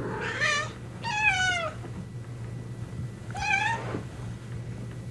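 A Siamese kitten meowing three times in high, thin mews, the second one longer and sliding down in pitch. A steady low hum runs underneath.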